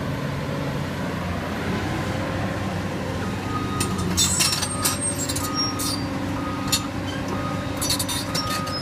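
Caterpillar tracked excavator's diesel engine running steadily. From about three seconds in, a short electronic beep repeats a little faster than once a second, like a machine travel alarm. Sharp clinks and clanks come in the middle and again near the end.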